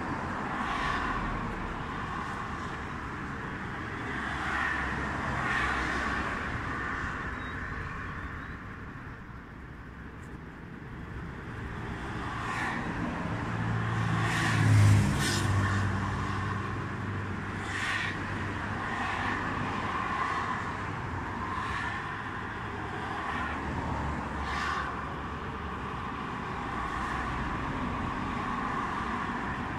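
Road traffic: cars passing at intervals over a steady background hum. The loudest pass, with a low engine drone, comes about halfway through.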